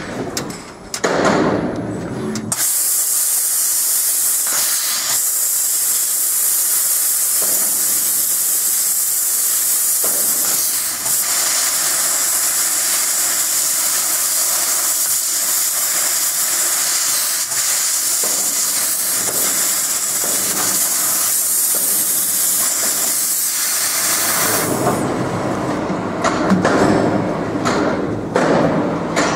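Fiber laser cutting head cutting 1 mm copper sheet: a loud, steady hiss of the assist gas jet that comes on suddenly about two and a half seconds in and cuts off about five seconds before the end. Brief knocks and clicks come before it starts and after it stops.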